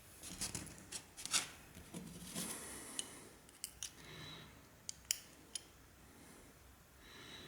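Restored carpet knife being worked: short metallic scrapes and sliding sounds, then several sharp metal clicks.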